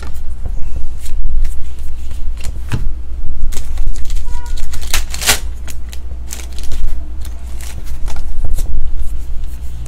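Trading cards being flipped through by hand, a quick run of soft snaps and slides as each card is moved to the back of the stack, over a steady low hum.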